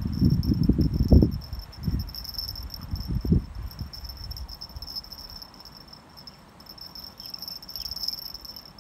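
A steady, high-pitched chorus of insects, crickets by the sound of it, trilling without a break. In the first three and a half seconds, loud low thumps and rumbles lie over it, then die away.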